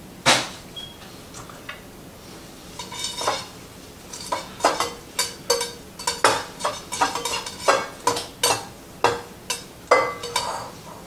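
A sharp click just after the start, then from about three seconds in a run of clinks from a metal utensil striking a bowl, about two a second, each ringing briefly: stirring lemon juice into the kale.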